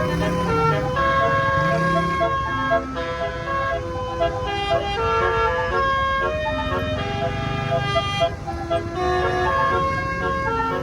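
Bus basuri horn playing a melody: several loud, steady horn notes at once, changing pitch every fraction of a second, over a low rumble.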